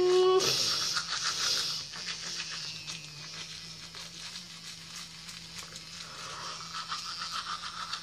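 Toothbrush scrubbing teeth through a mouthful of soap lather: fast, wet, scratchy brushing, loudest in the first couple of seconds and softer after. A held humming note cuts off about half a second in.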